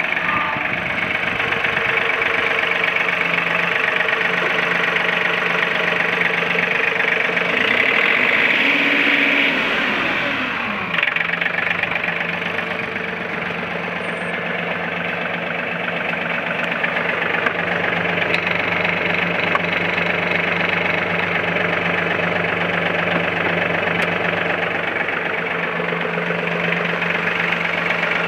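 John Deere 3039R compact tractor's three-cylinder diesel engine running steadily close by. Its speed drops about ten seconds in, then it settles and runs evenly.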